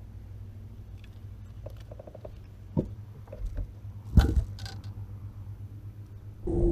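Fishing handling noises on a bass boat's deck over a steady low hum: a few light clicks, a knock near three seconds and a louder thump about four seconds in, as a bass is brought aboard. The noise jumps suddenly louder near the end.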